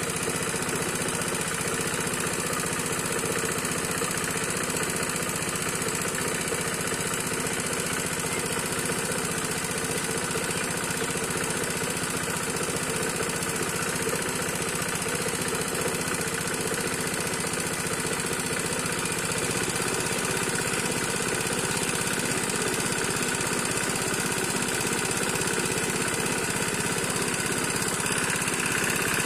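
Small engine-driven water pump running steadily, pumping water out of the pond to drain it.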